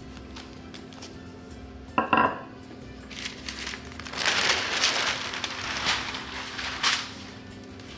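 A sheet of paper rustling and crinkling as it is peeled off rolled-out cookie dough, with several sharp crackles, from about three seconds in until near the end. A brief high-pitched sound comes about two seconds in.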